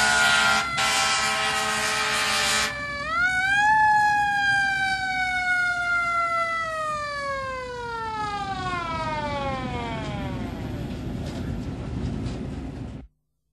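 A siren with a rich, many-harmonic tone. Its pitch jumps up about three seconds in, then winds slowly down until it fades, and it is cut off abruptly near the end. A loud, noisy blast overlaps the first few seconds.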